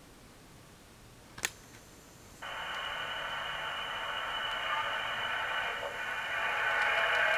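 Kato E233 Chuo Line model train running on its track: a steady motor whine with wheel noise starts about two and a half seconds in and grows louder as the train comes closer. A single sharp click comes shortly before it.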